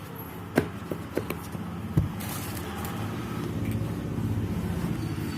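A few sharp clicks and taps from handling small plastic items, the earbuds and their charging case, over a steady low engine-like hum in the background.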